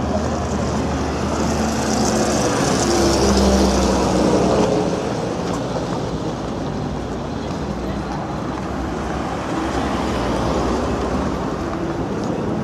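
Street traffic: a motor vehicle's engine hum, loudest from about two to five seconds in, over a steady background of road noise.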